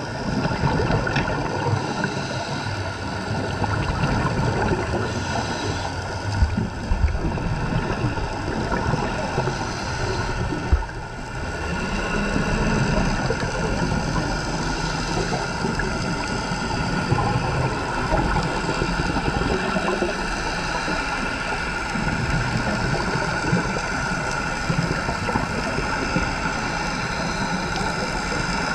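Steady, muffled underwater noise picked up during a scuba dive, with a few short low thumps.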